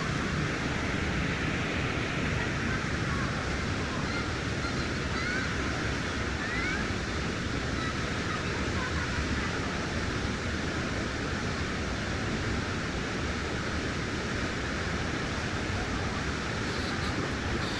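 Steady rushing roar of a large waterfall, even and unbroken, with a few faint high chirps about five to seven seconds in.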